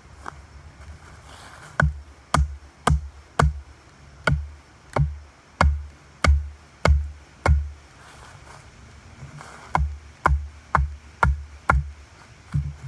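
A wooden club pounding a wooden stake into the ground: heavy thuds about two a second, about ten in a row, then a short pause and about six more.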